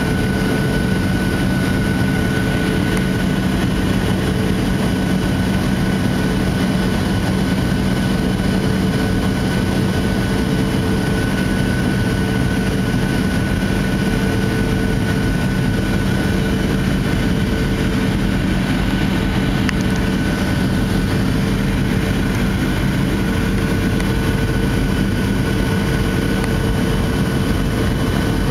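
Airliner cabin noise on approach to landing: a steady drone of engines and rushing air, with a few constant hums running through it.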